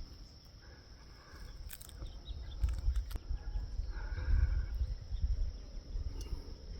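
Insects keeping up a steady high-pitched drone, with uneven low rumbling noise that is loudest from about two and a half to five seconds in, and a few sharp clicks.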